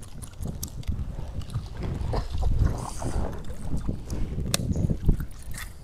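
Topwater pencil lure, a Duo Realis Pencil replica, being twitched across the water surface in a series of small splashes and sharp clicks, over a low rumble.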